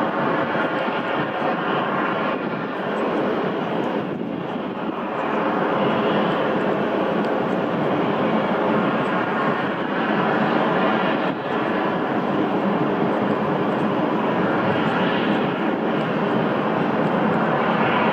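Jet airliner engines running on the airfield, heard from a distance as a steady rushing noise that swells slightly now and then.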